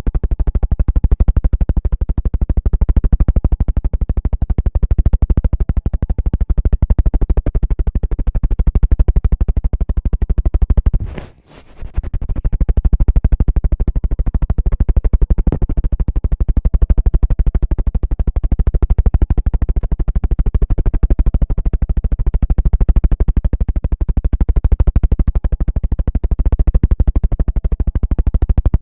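A steady, synthesizer-like electronic tone with a dense, rapid pulse. It cuts out briefly about 11 seconds in, then resumes.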